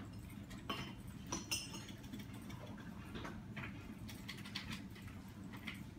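Quiet room tone: a steady low hum with a few faint clicks and rustles scattered through it, the sharpest about a second and a half in.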